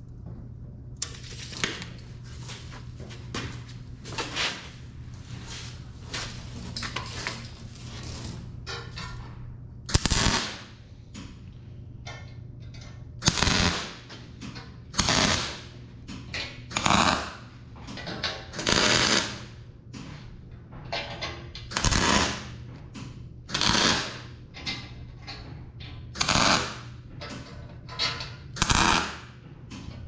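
Wire-feed welder laying short tack welds along a steel plate edge: about a dozen brief crackling bursts, one every second or two, starting about ten seconds in. Before them, a few light clicks of handling the steel.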